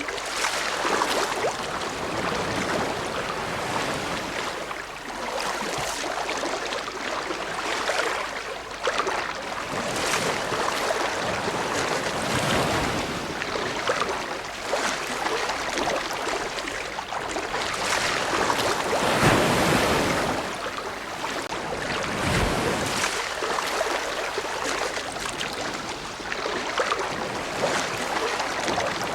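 Ocean waves breaking and washing on a shore, a continuous hiss of surf that swells with each wave every few seconds, loudest near the two-thirds point.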